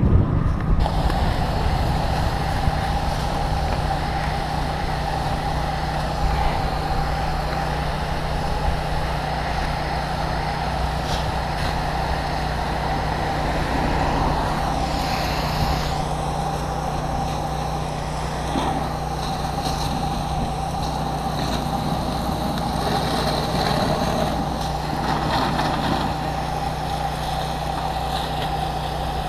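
Steady drone of a fire engine's engine and pump running, with the hiss of a high-pressure hose nozzle spraying water onto smouldering grass. A steady higher tone joins about a second in.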